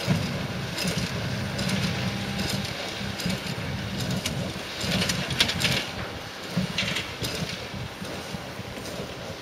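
Diesel tractor engine running steadily as it pulls a working John Deere 342A small square baler, the baler's mechanism rattling in short, irregular bursts. The sound gets a little fainter as the outfit moves away.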